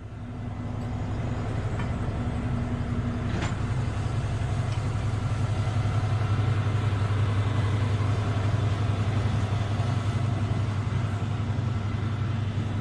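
Liebherr R 9350 mining excavator's engine and cooling fans running steadily: a deep, even hum.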